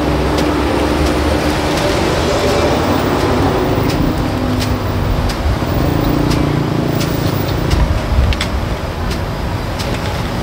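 Steady low rumble of motor traffic, with an engine hum that fades about three seconds in. Over it come scattered sharp clicks and taps of metal tongs and plastic seasoning jars being handled at the stall.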